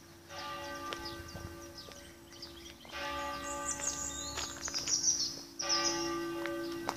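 Church bells ringing from the tower, several strokes whose tones ring on and overlap one another. Birds chirp faintly in the middle.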